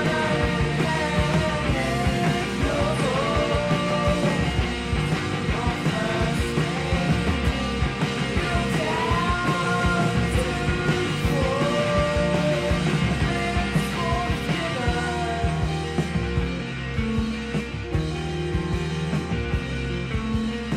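Background rock music with a sung melody line over a full band.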